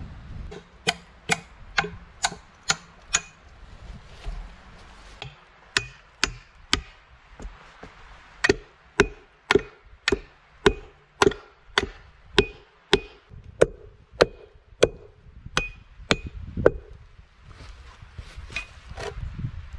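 A hatchet striking a wooden log, sharp blows each with a short ring, in several runs of about two to three strikes a second with brief pauses between.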